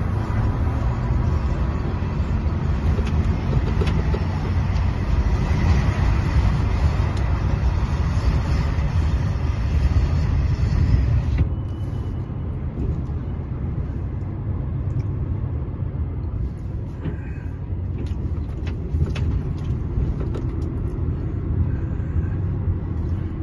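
Lorry's diesel engine running, heard from inside the cab as it drives, with a low drone and road hiss. The hiss drops away suddenly about halfway through, leaving mainly the engine's low drone.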